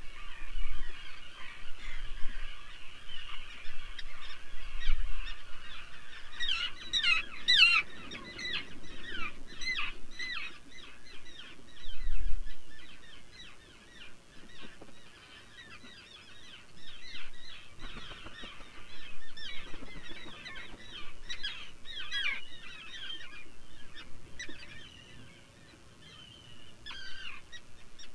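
Seabirds calling on a nesting colony: a steady chatter at first, then from about six seconds in a dense run of rapid, pitch-sweeping chirps that comes and goes. A short low rumble comes about twelve seconds in.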